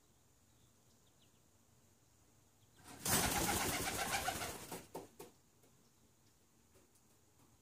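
A white homing pigeon's wings flapping hard as it takes off and flies, a loud fluttering burst of about two seconds starting three seconds in, followed by two short sharp claps.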